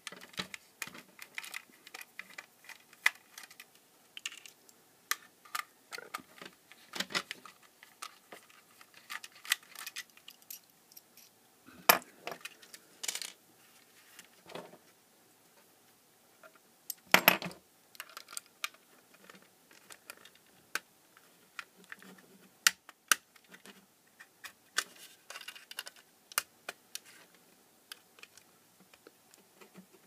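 Small screwdriver working on a plastic wall socket: scattered clicks, light plastic taps and small metallic ticks as screws are undone and the socket's casing is prised apart, with a few sharper knocks about 12 and 17 seconds in.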